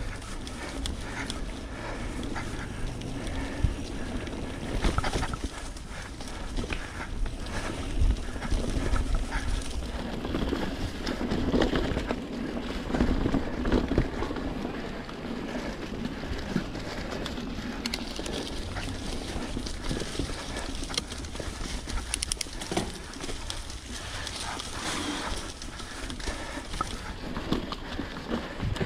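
Mountain bike being ridden along a dirt trail: a steady rush of tyre and riding noise with frequent knocks and rattles as the bike goes over bumps.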